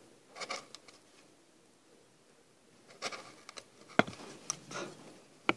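Small hand chisel paring wood fibres: short scraping cuts pushed by hand, with two sharp clicks, the louder about four seconds in and another near the end.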